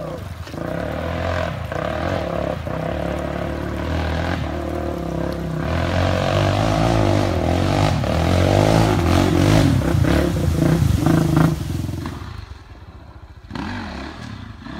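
ATV engines revving as the four-wheelers drive up a shallow creek, with water splashing. The engines grow louder as they approach, then drop away suddenly about twelve seconds in, leaving a fainter engine sound near the end.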